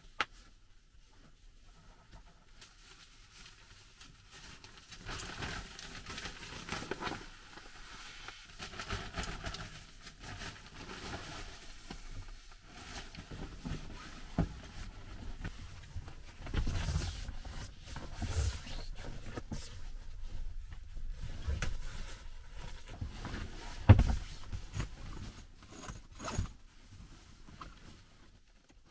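Irregular handling sounds: rustling and scraping with scattered knocks, the sharpest knock about 24 seconds in.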